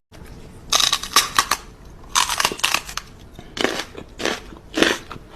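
Loud crunching, like something hard and brittle being bitten and chewed: two runs of quick crunches in the first half, then single crunches about every half second.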